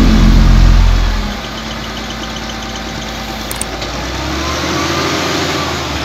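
XCMG LW300KN wheel loader's diesel engine, loud and under load for about the first second, then dropping back to a lower, steadier running. The revs climb again around four to five seconds in.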